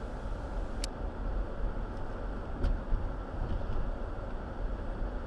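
Steady low road and engine rumble of a car driving, heard from inside the cabin, with two brief clicks about a second and near three seconds in.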